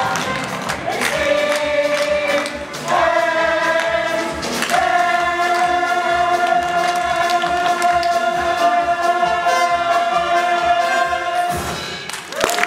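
Ensemble chorus singing over the musical accompaniment, climbing through a few held notes to one long final held note that stops suddenly, the big finish of the number. Applause starts at the very end.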